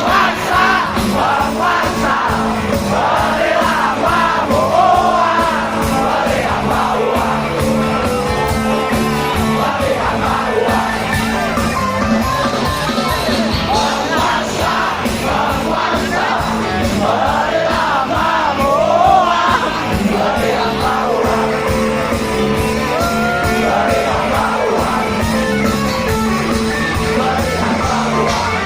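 Live band music with singing throughout, and crowd voices shouting along.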